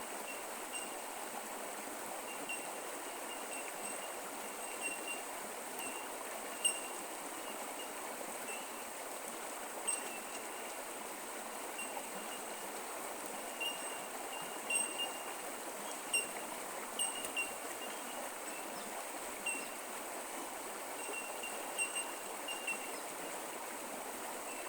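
Creek water flowing and trickling in a steady rush, with many short, high pips at two fixed pitches scattered irregularly over it.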